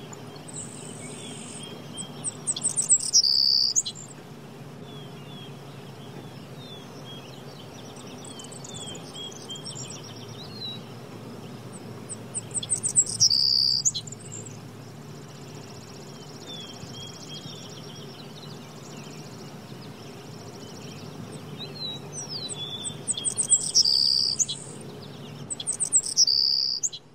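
Birdsong ambience: a songbird repeatedly sings a loud, rapid trilled phrase, four times, while other birds chirp softly. A steady low hum runs underneath.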